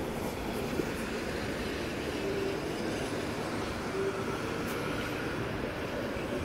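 City bus driving past, its engine and tyre noise running steadily amid street traffic.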